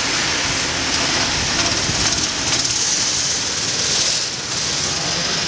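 Several go-kart engines running as the karts take a tight bend, a steady mechanical buzz with a short dip about four seconds in.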